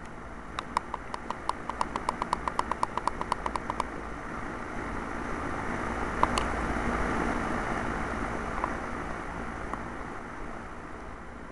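A vehicle passing by, its noise swelling to a peak and fading over several seconds. Before it, a rapid run of about twenty short high chirps, some seven a second, lasting about three seconds.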